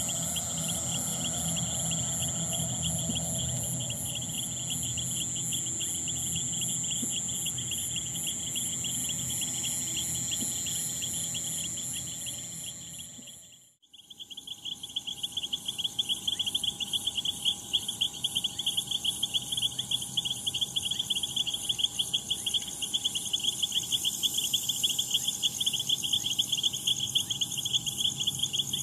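Crickets chirping in a dense, rapid trill, with a second, higher trill above it and a faint low rumble underneath. About halfway through, the sound fades out to almost nothing, then comes back with the chirping louder.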